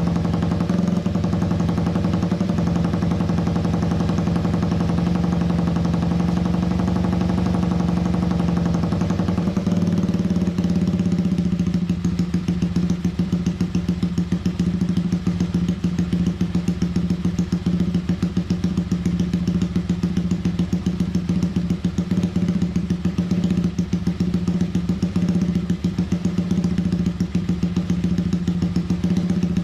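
Honda Sonic 125 single-cylinder four-stroke engine idling steadily through its short aftermarket muffler, being warmed up after the bike has stood unused for a long time. About ten seconds in the higher tones drop away and the separate exhaust beats come through more clearly.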